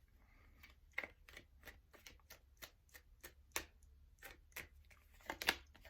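A deck of tarot cards being shuffled and drawn by hand: a quiet run of irregular card flicks and snaps, a few a second, with a quick cluster near the end.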